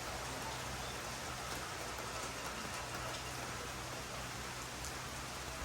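Soft rain falling steadily, a constant patter with a few separate drops heard among it.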